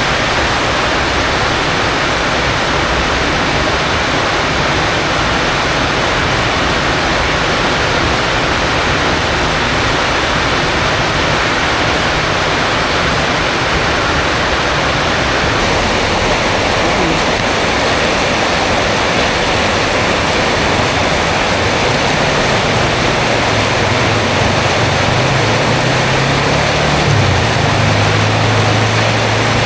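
Heavy rain pouring steadily, a dense even hiss. Near the end a low engine drone comes in under the rain.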